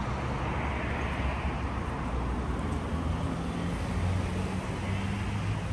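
Steady low rumble of road traffic, with a vehicle engine's hum that wavers slightly in pitch.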